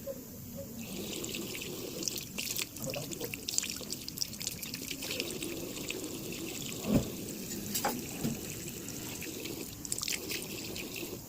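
Water running from a tap as the small measuring cup of a cough syrup is rinsed under it, starting about a second in. Light clicks and clatter of the cup go with it, and there is one louder knock about seven seconds in.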